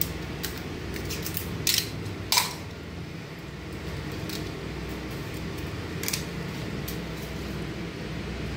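A knife cutting a strip of material and small metal parts being handled, giving a few sharp clicks and snaps, the loudest two about two seconds in, over a steady low hum.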